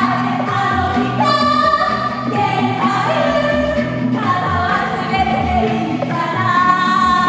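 Several voices singing together in held notes over instrumental backing music with a bass line.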